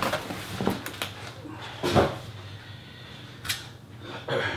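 Cardboard box being handled and set down on a wooden table: a few scattered knocks and scrapes, the loudest about two seconds in, and a short sharp click near three and a half seconds.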